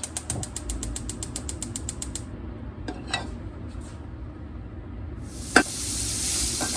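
Gas stove igniter clicking rapidly, about a dozen clicks a second for roughly two seconds, as the burner is lit. A few single knocks follow, the loudest a sharp knock about five and a half seconds in, and from about five seconds in a steady sizzling hiss rises from the pan.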